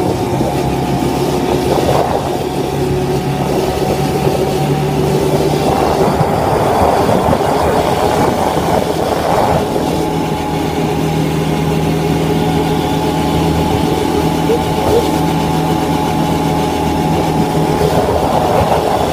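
Quad bike engine running steadily while riding, its note shifting a couple of times as the speed changes.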